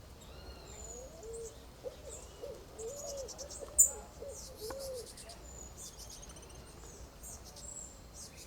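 A bird's low hooting call: a quick run of about seven short, arched hoots, over a steady background of high insect chirping. A single sharp click sounds about four seconds in.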